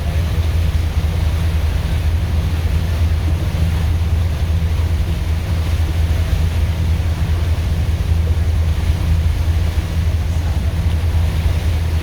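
Passenger boat's engine running steadily with a deep, even hum, over rushing water and wind noise.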